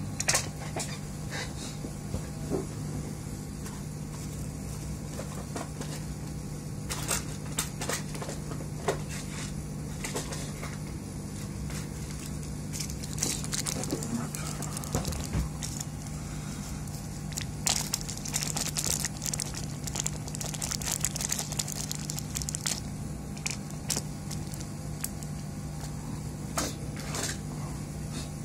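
Scattered small clicks and crackling from work on an electronics board, with a stretch of hissing crackle about two-thirds of the way through, over a steady low hum.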